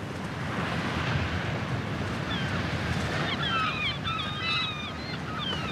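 Steady rushing of wind and surf, with several birds giving quick, thin, high chirping calls that overlap, starting about two and a half seconds in.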